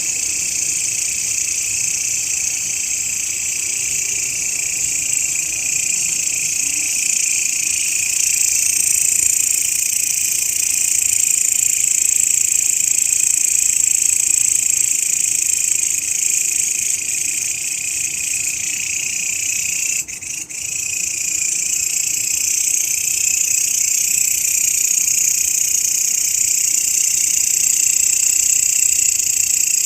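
Grasshopper (belalang) stridulation: a continuous, high-pitched buzzing chorus that breaks off for a moment about two-thirds of the way through and then resumes, played as a recording for songbirds to learn from.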